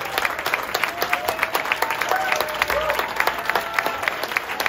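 Club audience applauding with dense, steady clapping, and a few voices calling out over it.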